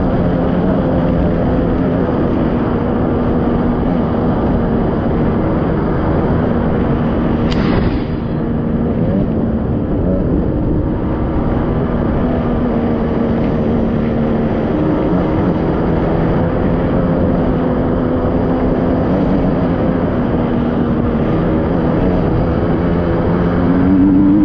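Fuel-injected two-stroke (TPI) enduro motorcycle engine running steadily as the bike rides along a gravel track. The engine note dips briefly about eight seconds in, then rises again near the end as the engine revs up.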